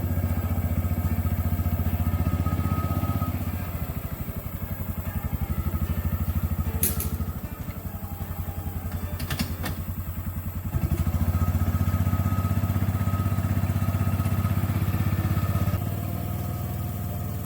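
A motor engine running steadily with a fast, even pulse. It eases off for several seconds mid-way and picks up again about eleven seconds in, with a few sharp clicks in between.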